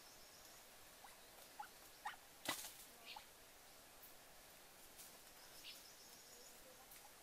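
Near-silent woodland with a few short, faint crackles and snaps of dry leaves and twigs under bare feet, the loudest about two and a half seconds in.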